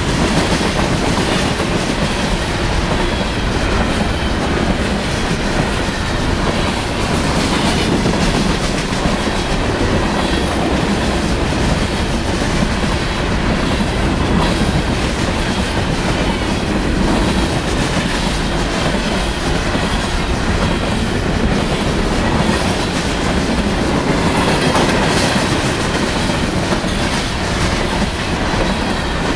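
Freight train of covered grain hopper cars rolling steadily past at close range, a continuous rumble with the wheels clicking over the rail joints.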